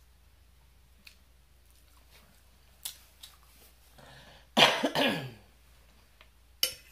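A woman coughing: two coughs in quick succession about halfway through. A short sharp click comes near the end.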